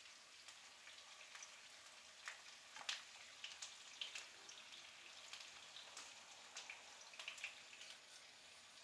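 Eggplant slices frying in hot oil in a pan: a faint steady sizzle with scattered small pops and crackles, the loudest about three and four seconds in.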